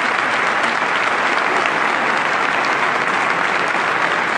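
Recorded crowd applause played as a sound effect: dense, steady clapping.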